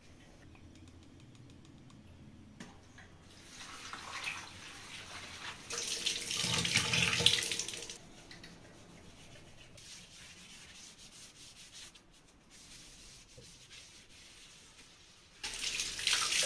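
Kitchen tap running into a sink, the water splashing, building about four seconds in, strongest for a couple of seconds, then shut off. The tap runs again near the end.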